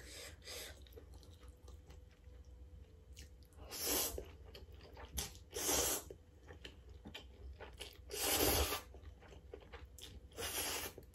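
A person slurping instant noodles in four short noisy slurps spread over the stretch, with quieter chewing between them.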